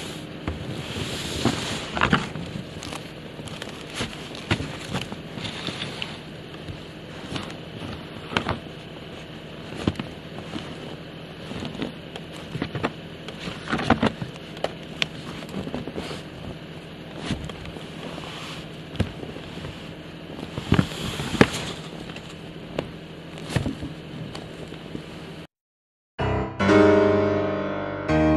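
Snow shovel scraping and knocking against a ribbed metal roof: irregular sharp knocks over a steady background hum. Near the end the sound cuts off and piano music begins.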